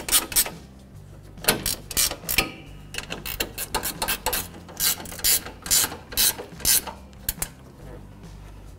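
Hand socket ratchet clicking as bolts are run down, in quick runs of clicks with short pauses between strokes, stopping shortly before the end.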